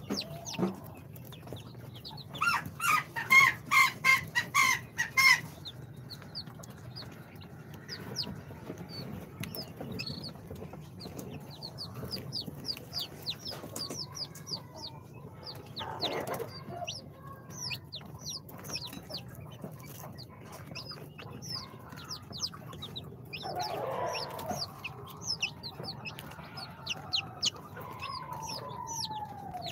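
Day-old chicks (Spanish, Brahma, bantam Cochin and Sultan) peeping nonstop, a stream of short, high, falling cheeps. A few seconds in comes a louder run of about ten clucks, and near the end a faint drawn-out falling call.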